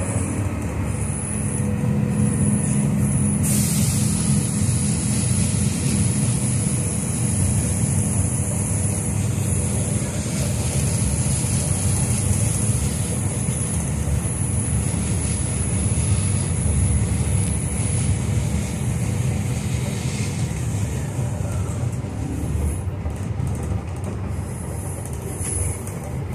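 Passenger train running, heard from inside the carriage: a steady low rumble of the wheels on the track, with a thin high-pitched whine through about the first two-thirds.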